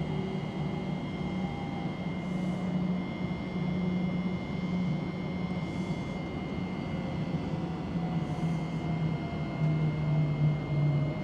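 Steady running rumble and electric hum heard inside the carriage of a Class 717 electric multiple unit train. A faint motor whine falls slowly in pitch in the last few seconds as the train slows on its approach to a station.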